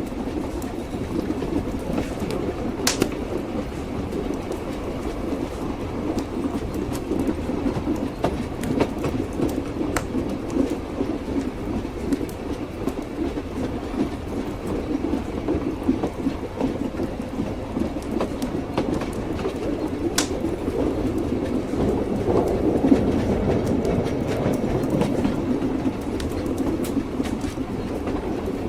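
Train wheels clattering over the rails with the steady rumble of a moving railway carriage, and an occasional sharp click.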